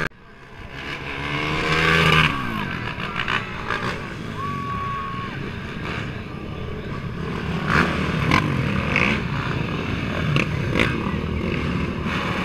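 Racing quad ATV engines running as the machines ride along the road, one passing close with its pitch rising and then dropping about two seconds in. A short steady high tone sounds near the middle.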